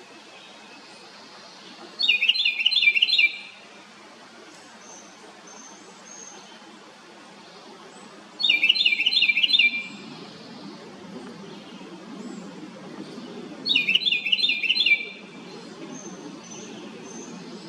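House wren giving three loud, fast bursts of repeated high notes, each about a second long and five to six seconds apart, with fainter bird notes in between.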